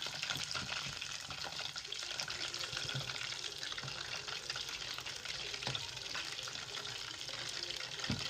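Batter-coated chicken pieces deep-frying in hot oil: a steady sizzle with fine crackling throughout.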